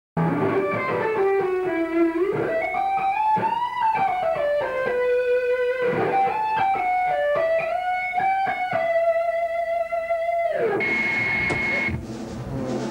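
Unaccompanied lead line on a Kramer Focus 1000 electric guitar: single sustained notes with bends and slides, ending on a long held note that glides down in pitch. After it, a thin steady high tone with hiss, and the level drops near the end.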